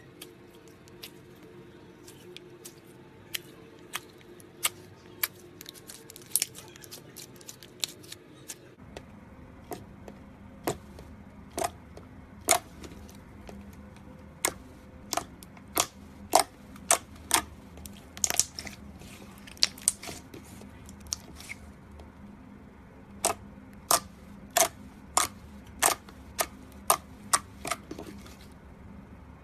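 Slime being pressed and worked by hand, giving sharp, irregular clicks and pops of trapped air, some in quick runs.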